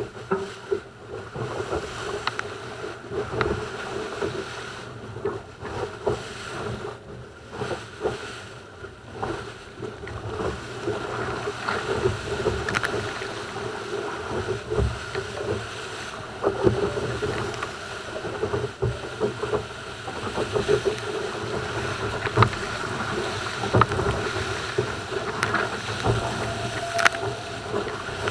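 Water rushing and spraying past the hull of an RS700 skiff planing fast, with wind buffeting the boat-mounted camera's microphone. The hull slaps over the chop in irregular knocks, and a steady hum runs beneath it all.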